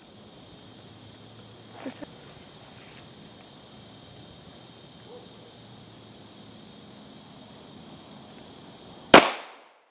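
A single 9mm pistol shot from a Smith & Wesson M&P Pro Core with a 4.95-inch barrel firing a Geco 124-grain full metal jacket round, sharp and loud, about nine seconds in, with a short ringing tail. Before it, a steady high-pitched insect hum and a faint knock about two seconds in.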